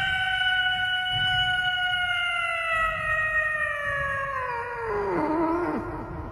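A domestic cat's single long yowl, held on one steady pitch for several seconds, then sliding down and wavering before it stops near the end.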